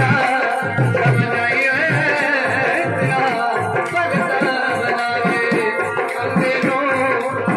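Punjabi folk devotional music: a bowed sarangi playing a wavering, ornamented melody over regular beats of a small hand-struck hourglass drum (dhadd).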